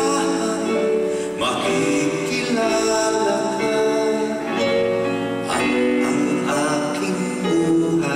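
A man singing a slow ballad into a microphone with live band accompaniment, holding long notes, in a medley of heartbreak songs.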